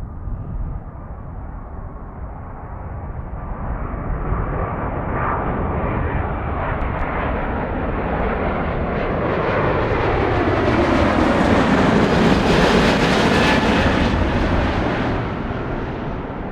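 Jet airliner passing close by: its engine noise builds, peaks about two-thirds of the way in, then fades, with a whine that falls in pitch as it goes past.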